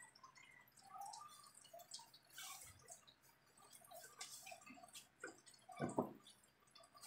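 Faint, scattered small clicks and light taps from handling small electronic parts and wiring, with one louder knock about six seconds in.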